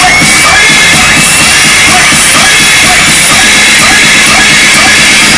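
Loud rock music with a drum kit, dense and constant in level.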